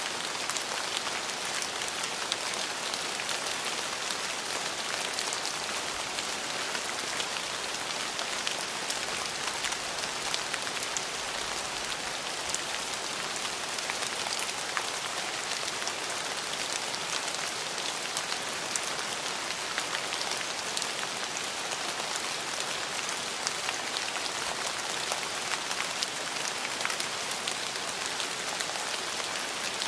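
Steady rain falling on a surface, an even hiss with many small drop ticks and no thunder.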